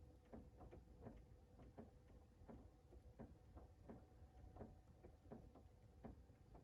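Faint rain, drops tapping in quick succession at about three a second, over a low steady hum.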